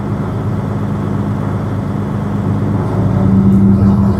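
Heavy truck's diesel engine running steadily at a raised idle inside the cab, building air pressure toward the governor cutout; the hum grows louder about three seconds in.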